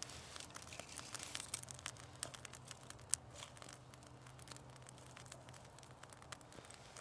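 Faint, irregular crackling and snapping of a small fire of dry pine twigs burning, along with the twigs being handled and laid onto it.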